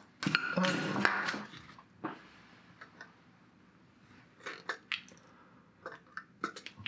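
Workbench handling noise: a clatter in the first two seconds as a soldering iron is set back in its coiled stand, then scattered light clicks and taps as a populated circuit board is picked up and handled.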